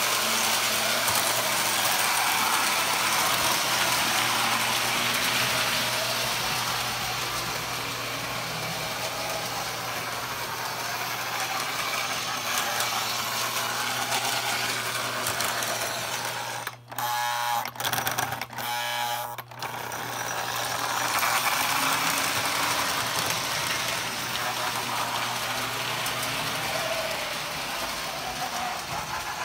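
Postwar Lionel O-gauge toy trains, including a 627 diesel switcher, running on three-rail tinplate track: a steady whir and rattle of motors and wheels over a constant low hum. The sound dips out twice, briefly, a little past the middle.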